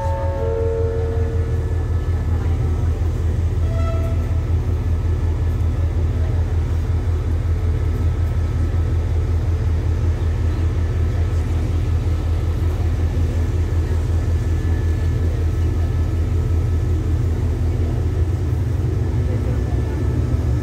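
Diesel-electric train engine running with a steady, low, evenly pulsing throb as the passenger train stands at the platform. The sound changes near the end as the train starts to roll away. A few short descending tones sound at the very start.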